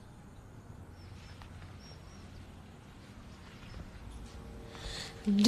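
Quiet background hiss with a few faint, short high chirps. Music with steady low notes comes in sharply just before the end.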